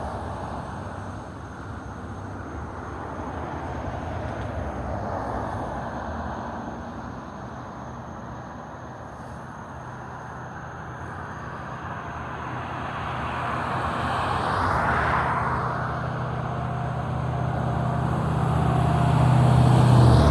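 Road traffic passing: tyre and engine noise swells and fades, with one vehicle passing about fifteen seconds in and a low engine hum building near the end as another approaches.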